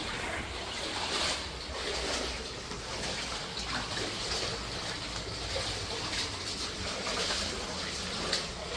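Water trickling and splashing steadily, with faint irregular ticks.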